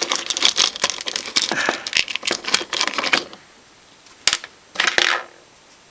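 Handling noise on a workbench as small metal screws and amplifier parts are picked up and moved: a run of rapid clicks and rattles for about three seconds, then a single sharp click and a short rub near the end.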